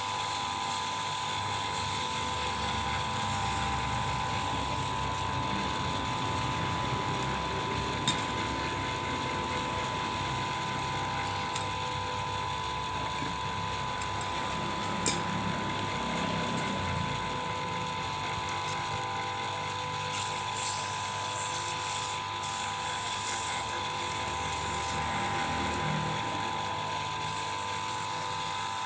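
Homemade PVC-pipe lathe running steadily, its small motor giving a constant whine over a mechanical rattle, with a few sharp clicks about eight and fifteen seconds in.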